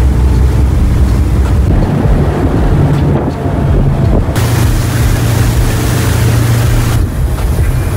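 A ferry's engines droning steadily underway, with wind buffeting the microphone and water rushing along the hull. About four seconds in, the hiss of wind and water grows louder for a few seconds, then eases.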